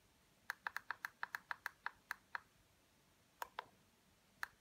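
Push buttons on a Meditech SpirOx handheld spirometer clicking under a thumb: a quick run of about a dozen presses in two seconds, then three more presses further apart.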